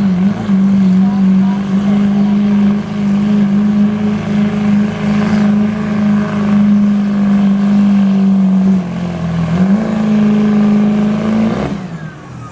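Diesel Chevrolet Silverado pickup engine running flat out at high revs while pulling a weight-transfer sled. The revs sag briefly near the start and again about nine seconds in. Near the end the engine drops off sharply as the pull ends.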